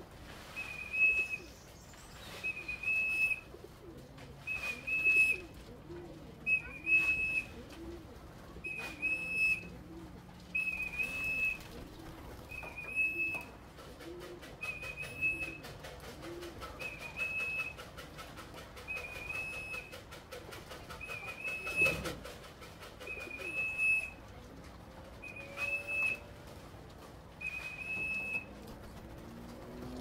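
Racing pigeons cooing at the loft, with a short high whistle repeating about every two seconds and a knock about two-thirds of the way through.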